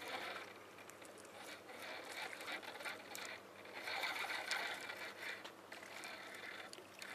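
Spinning reel being cranked, its gears whirring in uneven spells as line is wound in on a hooked mackerel.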